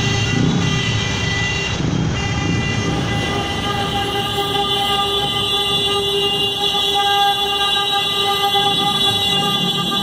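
Many taxi horns sounding together in a honking protest: several steady horn tones overlap and are held without a break.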